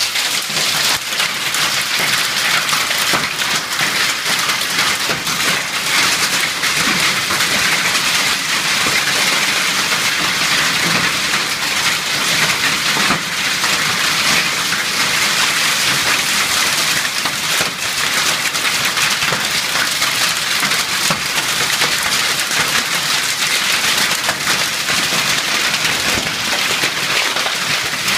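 Hail and heavy rain pelting down: a dense, steady hiss full of small, sharp clicking impacts.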